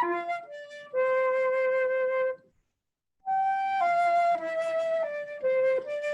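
Slow, solo flute melody of sustained notes. A long held low note ends with a brief pause about halfway through, then the melody resumes with a run of stepwise notes.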